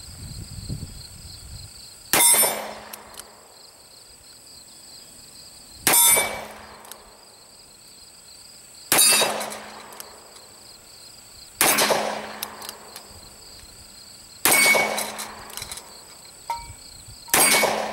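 Six shots from a post-war Smith & Wesson Military & Police .38 Special revolver with a 5-inch barrel, fired slowly in single action about three seconds apart. Several shots are followed by a short metallic ringing.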